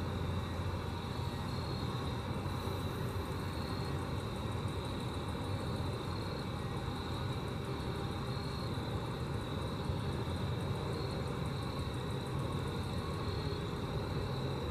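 Grasshoppers stridulating: a faint, rapid, high-pitched ticking over a steady low rumble.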